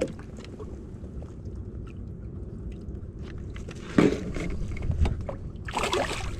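Steady low wind-and-water noise around a small boat, with scattered light knocks, a sharp knock about four seconds in, and rustling handling noise near the end.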